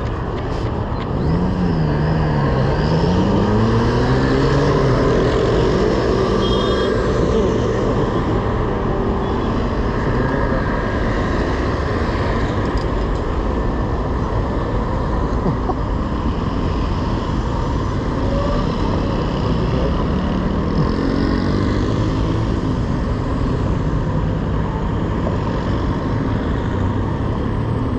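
Road traffic passing close by at a busy city junction: car engines and tyres, with an engine rising in pitch as a vehicle pulls away about a second in, and another pitch rise around twenty seconds in.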